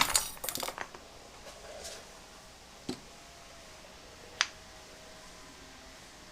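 Metal clatter as a steel C-clamp and engine parts are handled on a workbench: a quick run of clinks at the start, then two single sharp clicks a few seconds later.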